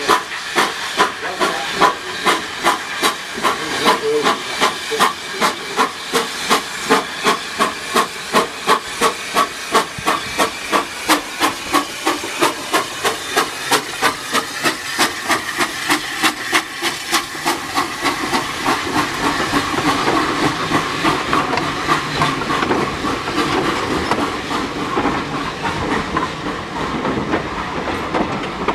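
Steam saddle-tank locomotive pulling away with a train, its exhaust chuffing in a regular beat that gradually quickens as it gathers speed. From about two-thirds of the way through the chuffs fade and the carriages roll past with a steady rumble.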